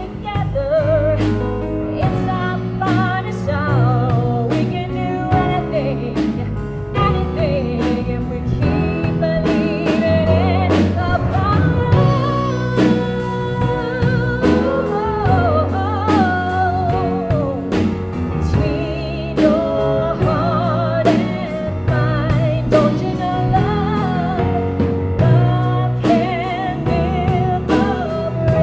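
Woman singing a Christian worship song with vibrato, backed by a live band of keyboard, drum kit and electric guitar playing to a steady beat.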